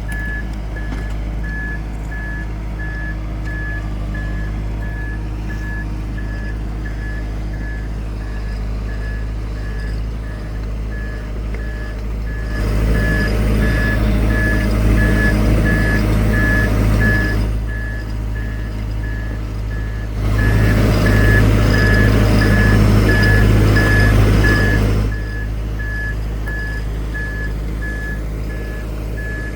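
ROC 122R crawler drilling rig running with its engine at a steady hum while a warning alarm beeps in quick, regular pulses throughout. Twice, about 12 seconds in and again about 20 seconds in, the machine grows much louder for about five seconds, then settles back.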